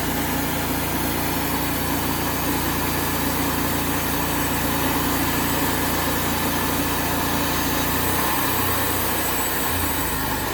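Portable Wood-Mizer band sawmill running steadily, its engine under load while the band blade saws through a white oak log with a dense high hiss. The engine note shifts near the end, and the hiss starts to fade as the cut finishes.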